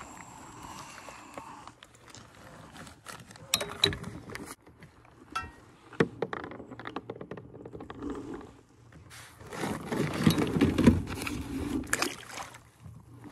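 Handling noises on a plastic fishing kayak as a smallmouth bass is unhooked and released: scattered clicks and knocks, then a louder stretch of rustling and splashing about two-thirds of the way through.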